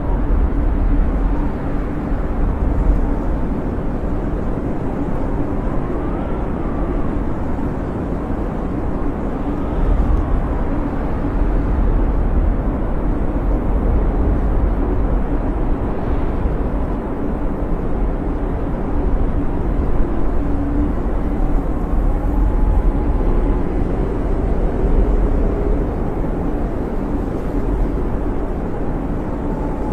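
Blizzard wind howling: a steady, heavy rumbling rush with faint whistling tones that rise and fall now and then.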